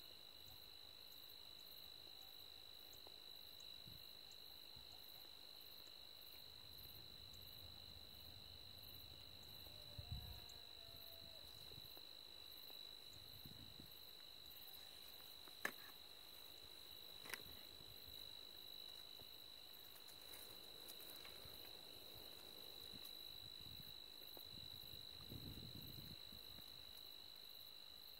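Near silence with faint, steady, high-pitched insect song, a continuous chirring. A soft low thump about ten seconds in and two faint clicks a few seconds later.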